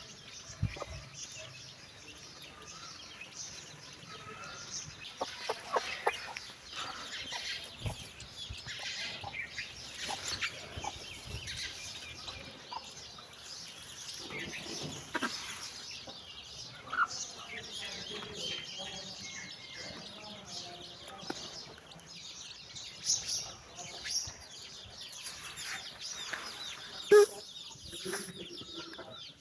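Domestic hen clucking to her chicks while the chicks keep up many short, high peeps. One sharp, louder call comes near the end.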